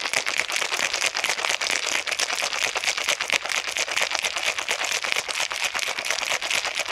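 Ice cubes rattling hard inside a cocktail shaker being shaken, a fast, unbroken run of clattering strikes against the shaker walls, chilling a mango margarita mix of muddled mango, tequila, triple sec, lime juice and simple syrup.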